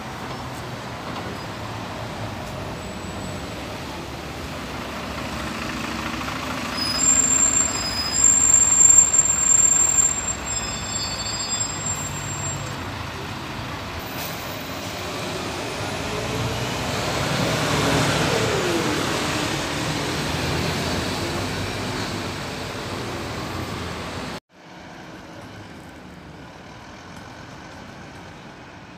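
City buses in street traffic, engines running and tyres on the road, with short high-pitched brake squeals and air-brake hisses from about seven to ten seconds in. Around eighteen seconds a passing vehicle's engine falls in pitch; after a sudden cut near the end, quieter traffic as a Volvo 7700 city bus approaches.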